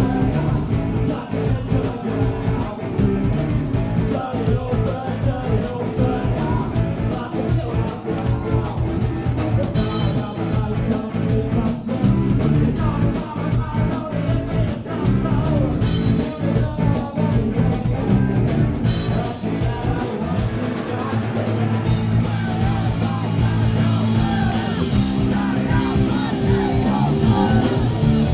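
Live rock band playing a song: drum kit with a fast, steady beat, electric guitar and bass, with singing.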